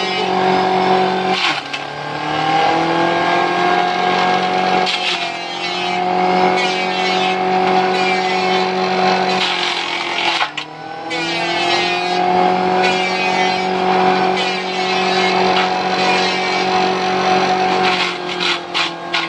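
Forage chopper driven by a 1 hp electric motor from a Shimizu water pump through a V-belt, running with a steady humming whine and the noise of its blades cutting leafy green branches fed in by hand. Twice, about a second and a half in and again about ten seconds in, the pitch sags as a bundle loads the machine, then climbs back over a few seconds. Near the end the sound turns uneven.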